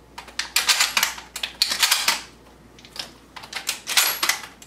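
Dummy shotgun shells being pushed in quick succession into a pump shotgun's tube magazine through the loading port, a rapid clicking and clattering of shells and the shell latch in several short bursts.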